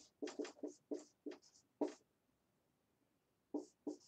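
Dry-erase marker writing on a whiteboard, a quick run of short squeaky strokes. It pauses for about a second and a half after the middle, then starts again near the end.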